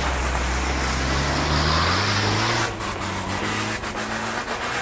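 Isuzu D-Max pickup's engine pulling through deep mud under a loud rushing noise of tyres churning mud, its pitch rising as it revs up about halfway through. The sound drops suddenly a little under three seconds in, leaving the quieter engine and scattered clicks.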